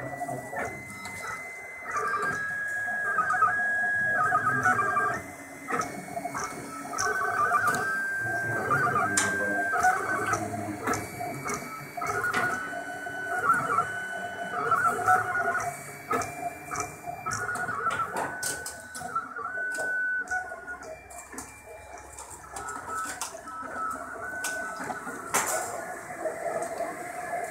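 Ultimaker Original 3D printer printing: its stepper motors whine in tones that jump up and down in pitch as the print head moves, over a steady hum.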